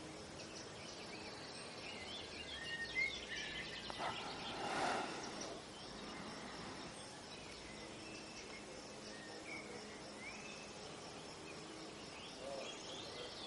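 Garden ambience: birds chirping now and then over a steady high insect trill. There is a brief rustling swell of noise about four to five seconds in.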